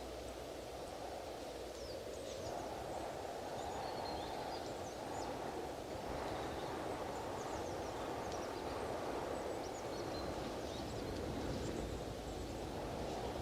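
Wind blowing steadily, a dense low rushing that grows a little stronger after about two seconds. Faint, short, high bird chirps come and go throughout.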